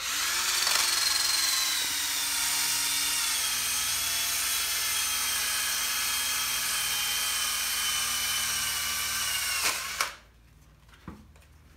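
Electric drill fitted with an abrasive wheel, running steadily to clean the water pump gasket surface on the engine. It gives a steady whine with a hiss above it, the pitch sagging slightly, and it cuts off about ten seconds in, followed by a faint click.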